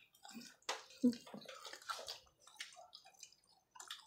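Quiet, scattered wet clicks and smacks of a person eating.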